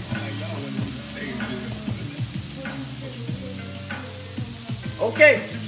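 Chopped bell peppers, onion, garlic and jalapeño sautéing in a skillet: a steady frying sizzle.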